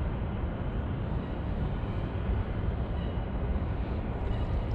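Steady low rumbling noise of wind buffeting the microphone, rising and falling unevenly, with a few faint ticks near the end.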